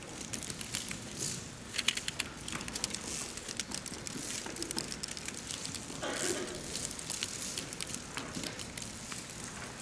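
Many abacuses being worked at once: a dense, irregular clicking of beads flicked by fingers, mixed with paper rustling and pencil scratching.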